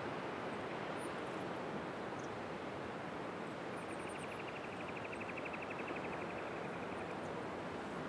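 Steady wash of distant ocean surf. From about the middle, a rapid, evenly pulsed trill runs for about three seconds, with a few faint high chirps.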